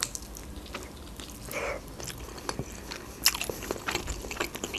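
A bite into a fried khinkali dumpling, then chewing with small wet clicks scattered through, and a short breathy hiss about a second and a half in.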